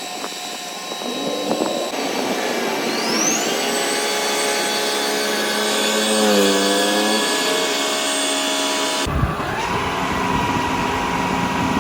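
Combine harvester machinery spinning up, its whine climbing in pitch over the first few seconds and then running steady. About nine seconds in it cuts to a lower, steady engine running.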